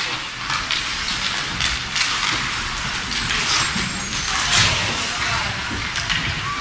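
Ice hockey game heard from the stands: skates scraping the ice and sticks and puck knocking in short strokes over a steady crowd murmur in the rink.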